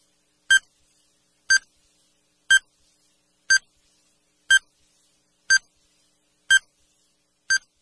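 Countdown timer sound effect beeping once a second: eight short, identical high beeps.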